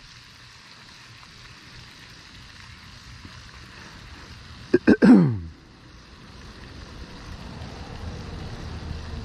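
A man clears his throat once: two sharp clicks, then a short grunt that falls steeply in pitch, a little before halfway. A low rumble builds through the second half.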